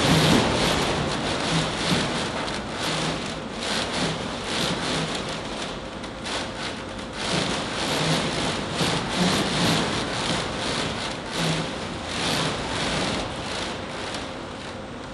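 Full-scale traditional timber-frame wooden houses being shaken on an earthquake shake table: a continuous noisy rumble with rattling and creaking from the wooden frames, gradually dying down.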